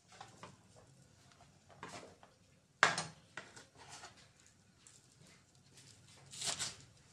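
Kitchen knife chopping spring onions on a wooden cutting board: irregular knocks of the blade on the board, with one sharp, loud knock about three seconds in and a longer scraping rustle of the onions near the end.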